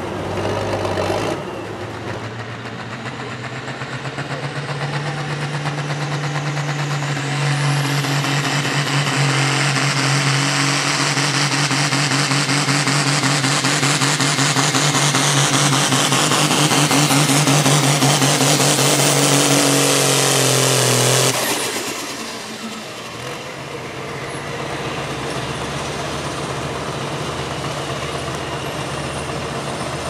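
Hot farm pulling tractor's diesel engine run at full throttle down the track, getting louder over the first several seconds and holding loud with its pitch slowly dropping as the sled loads it down. The engine cuts off suddenly about two-thirds of the way through, leaving a quieter steady background.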